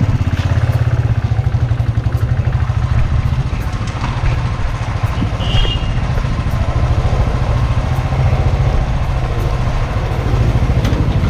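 Motorcycle engine running at low speed, with a fast, even pulsing beat.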